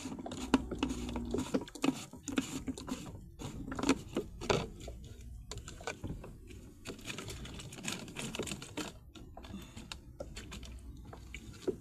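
Irregular small clicks, taps and rustles of gloved hands handling fishing gear in a kayak while taking out a live shrimp for bait, busiest in the first half.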